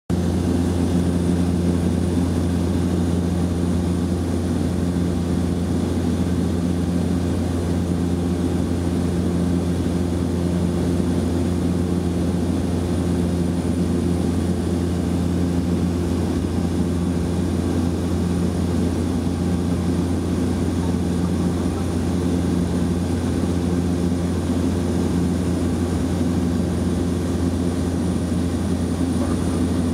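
Small propeller aircraft's engine and propeller droning steadily from inside the cabin in level flight, a constant low hum with a few steady tones above it and no change in pitch.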